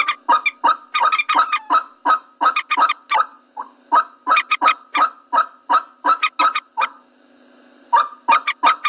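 Common moorhen calls played as a bird-lure recording: a rapid series of short clucking notes, several a second, breaking off briefly twice.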